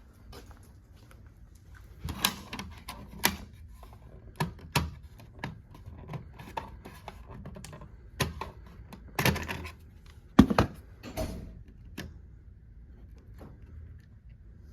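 Scattered, irregular clicks and knocks of hands handling things, the loudest a knock about ten and a half seconds in.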